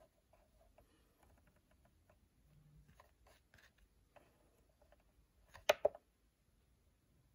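Button presses on the front panel of a CNC motion controller: scattered faint clicks and taps, then two sharp, louder clicks in quick succession a little before the end.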